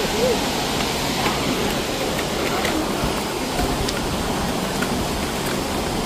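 Steady rushing of a waterfall: an even, unbroken noise of falling water, with a faint voice briefly near the start.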